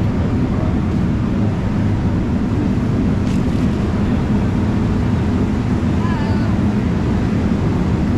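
Busy city street ambience: a steady low rumble of traffic and crowd noise, with a brief faint voice about six seconds in.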